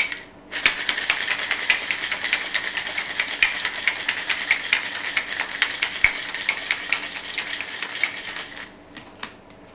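Cocktail shaker shaken hard with ice to chill the drink: a fast, continuous rattle of ice cubes knocking inside the shaker for about eight seconds. It stops near the end, followed by a single click.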